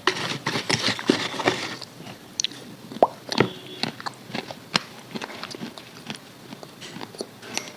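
Crunching and chewing of crispy KFC fried chicken: a dense burst of crackling crunches for the first two seconds, then scattered smaller crunches and clicks.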